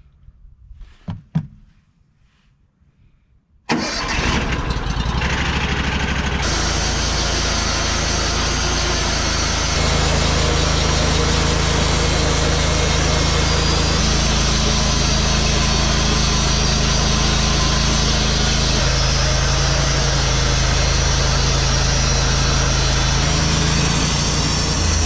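Band sawmill running as its band blade cuts through an oak log: a steady engine-driven sawing sound that comes in abruptly about four seconds in, after a short near-quiet stretch with a brief knock about a second in, and grows a little louder about ten seconds in.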